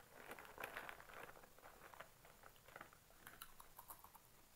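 Foil potato chip packet crinkling in soft, irregular crackles as it is handled and then laid on the table.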